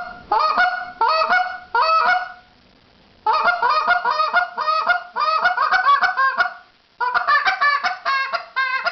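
Goose call blown in the hiccup note, which imitates geese getting excited: each note is a moan that breaks upward into a cluck. First four separate notes, then, after a short pause, two quick runs of notes with a brief gap between them.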